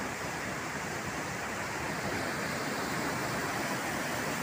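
Steady rushing of a river waterfall and fast-flowing water, an even unbroken roar.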